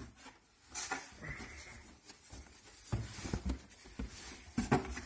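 Cardboard box flaps being folded open and handled: scattered scrapes, rustles and light knocks of cardboard.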